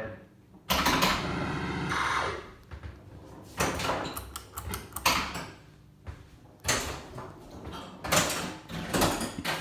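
Pinball machine being played: irregular loud bursts of mechanical banging and rattling every second or two, with a pitched electronic sound effect about a second in. The ceiling fan is drowned out under it.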